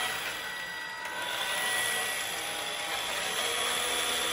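Electric motor and gear train of a 1/6-scale FMS Suzuki Jimny RC crawler running steadily, with a whine that drifts slightly up and down in pitch.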